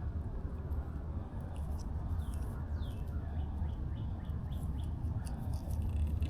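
Birds calling: a run of short, falling chirps, over a steady low rumble.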